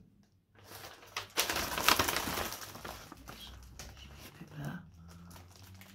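Paper sheet and plastic packaging rustling and crinkling as they are handled, loudest about two seconds in and then fading.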